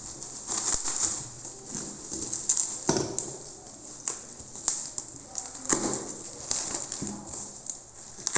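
Bubble wrap being pulled and peeled by hand off a cardboard box: irregular plastic crinkling and rustling, with several sharper crackles.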